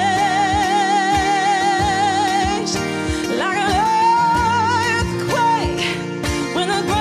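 A woman sings wordless long notes with a wide vibrato over a strummed acoustic guitar: one held note, then a slide up into a second, slightly higher held note about three and a half seconds in.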